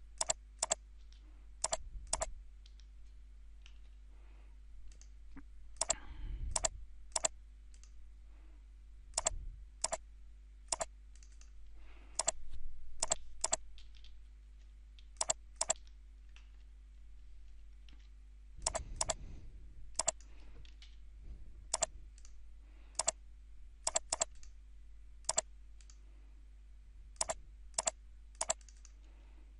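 Computer mouse clicks, sharp and short, mostly coming in quick pairs, as lines are picked two at a time with a CAD line-checking tool, over a faint steady hum. A few soft low rustles, about 6, 9 and 19 seconds in, sound like the mouse sliding on the desk.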